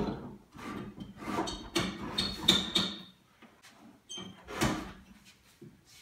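Built-in metal microwave being pulled and wiggled in its wooden cabinet opening: a run of knocks, rattles and short squeaky scrapes of metal against wood, with one more knock near five seconds. The unit is caught and won't come free.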